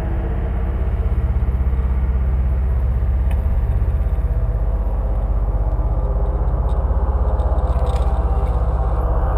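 Boat engine running steadily, a low throbbing drone with a fast, even pulse.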